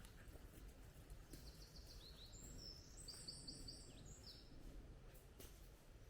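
Faint woodland near silence with a low, even background rumble. A small songbird sings one phrase of quick, high repeated notes from about a second and a half in to about four seconds in.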